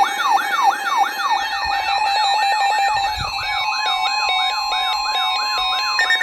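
Electronic alert siren sweeping rapidly up and down, about three sweeps a second, over a steady tone. It is the attention sound that opens an Emergency Alert System tornado warning.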